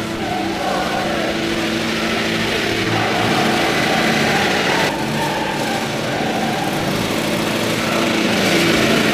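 John Deere riding lawn mower's engine running steadily as the mower drives across the lawn, with abrupt shifts in the sound about three and five seconds in.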